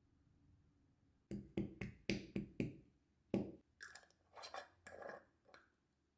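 Metal screw-top lid being twisted onto a small glass jar: a quick run of sharp clicks and knocks as the lid seats on the threads, then several rougher scraping turns.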